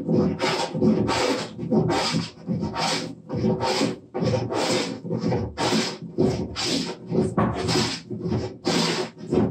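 Wooden jointer plane shaving a workbench top in quick, short, repeated strokes, each a rasping shave of the iron through the wood, about three strokes every two seconds. It is taking a heavy cut to bring down a high spot on the bench.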